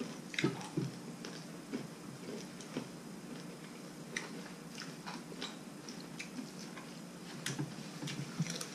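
Quiet eating: chewing, with scattered light clicks of chopsticks and a spoon against a bowl of noodle soup.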